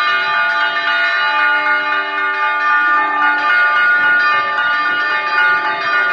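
Several church bells ringing together in a continuous peal, their tones at different pitches overlapping without a break.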